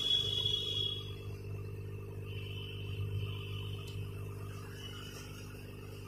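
Hot air rework gun blowing on a phone circuit board to desolder the broken charging port: a steady low hum with a faint high whine that comes and goes.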